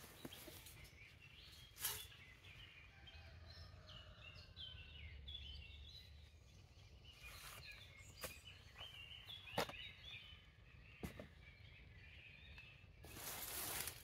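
Forest birds singing faintly, a stream of short high chirps and trills, with a few sharp clicks and a burst of rustling near the end.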